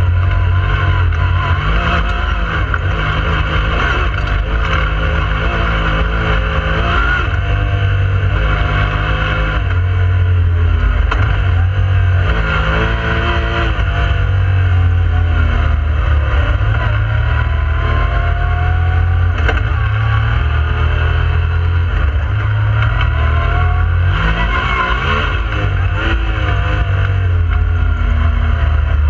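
Yamaha YXZ1000R side-by-side's three-cylinder engine running under load while driving, its pitch rising and falling repeatedly as it accelerates and eases off.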